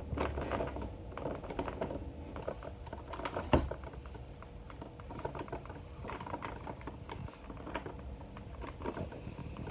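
Light rustling and clicking of a cardboard action-figure box being handled and turned in the hands, with one sharper knock about three and a half seconds in.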